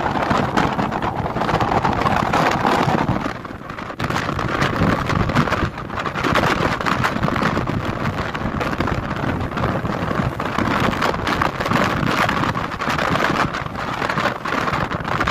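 Wind buffeting the microphone: a steady rushing noise that rises and falls, with a brief lull about three and a half seconds in.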